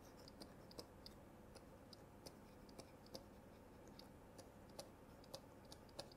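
Near silence with faint, irregular clicks of a stylus tapping on a pen tablet while handwriting.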